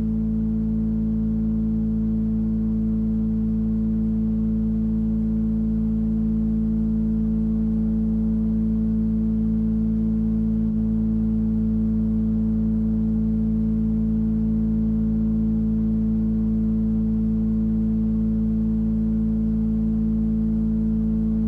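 Sustained background music: a single steady chord of several held tones, unchanging throughout, with a faint click about halfway through.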